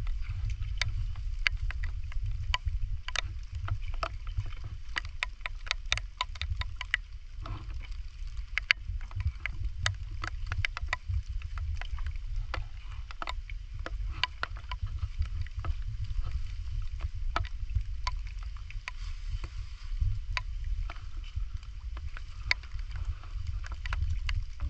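Rain falling on shallow muddy swamp water, heard as many sharp, scattered drop ticks, thickest a few seconds in, over a steady low rumble.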